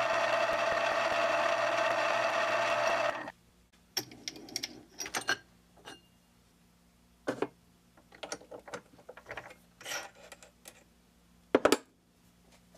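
Mini milling machine's spindle motor running steadily, then switched off about three seconds in. After it, scattered light clicks and knocks of handling at the machine, with a sharper knock near the end.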